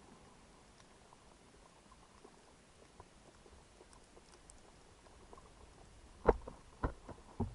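Underwater ambience picked up through a camera housing: faint crackling and ticking, then three short dull knocks about half a second apart near the end.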